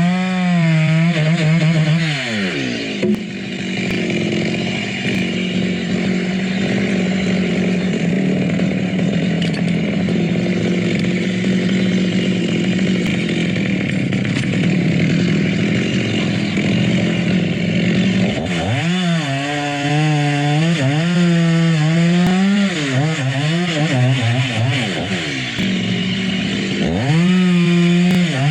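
Chainsaw running: the engine revs up and down unsteadily for the first two seconds, then holds a long steady stretch while cutting coconut palm wood. After about eighteen seconds it revs up and down again, and once more near the end.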